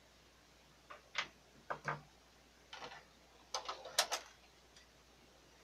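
Short plastic-and-metal clicks and knocks from handling the print carriage and rail assembly of an opened HP OfficeJet 4500 printer. The clicks come irregularly, singly and in small clusters, with the loudest group about four seconds in.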